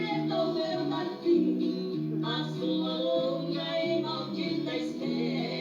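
Old-style sertanejo duo of two brothers singing in close two-part harmony, a high first voice over a second voice, in long held notes.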